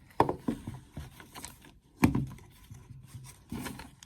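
Handling noise: hard objects knocked and rubbed together, with a few sharp knocks, the loudest about two seconds in, and scraping between them.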